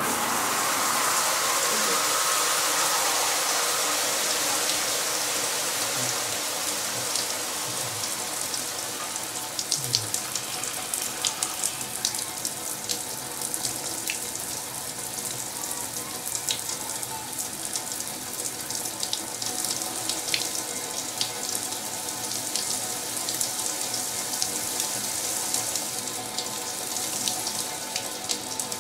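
Shower running: water spraying from a shower head and splashing into a shower tray, a steady hiss, a little louder at first, with scattered sharp drips and splashes.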